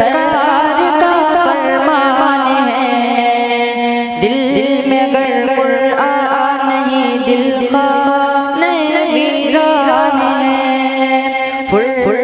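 A young man's solo voice singing an Urdu tarana (Islamic devotional song), drawing one line out into a long, ornamented melisma of held, wavering notes.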